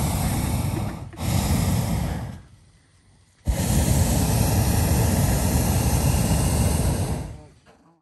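Hot-air balloon propane burner firing in blasts to heat the air in the envelope during inflation: a blast running into the first second, a second blast of just over a second, a pause of about a second, then a long blast of about four seconds that fades out near the end.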